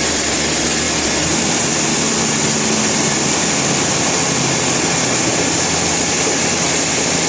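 Sawmill machinery running steadily: an engine-driven mill with a loud, even hiss and a low engine hum.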